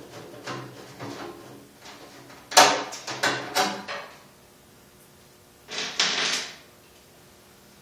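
Hand tools and metal parts clattering and scraping while a bolted-on side cover is being worked loose: light knocks, then a loud run of clunks and scrapes about two and a half seconds in, and another scraping clatter a couple of seconds later.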